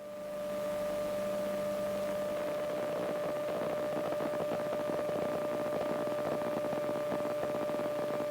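Cockpit intercom audio feed during climb-out: a steady hiss with a constant hum tone, swelling in over the first second after the talk stops.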